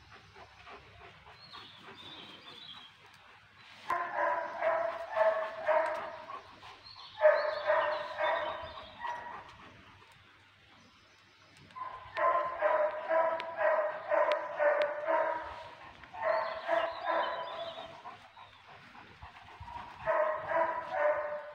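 A dog barking in quick runs of about three barks a second, in five bouts separated by short pauses.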